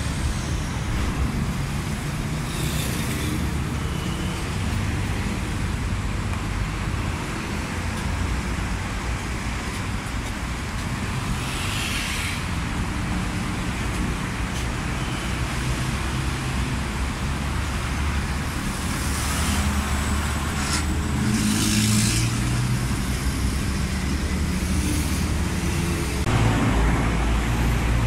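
Busy road traffic: the steady low rumble of bus, truck and car engines, with brief hissing sounds a few times. A city bus's engine grows louder near the end as it pulls up close.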